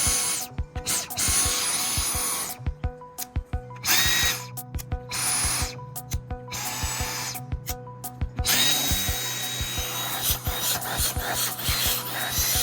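Dyson vacuum's motor switched on and off in short runs, each time whining quickly up to a high steady pitch with a rush of air; the longest run comes near the end.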